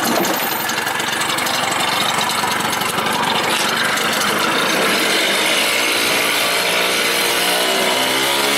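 Honda Lead 50 scooter's single-cylinder two-stroke engine running with a steady buzz, its pitch rising and falling in the second half as the throttle is worked.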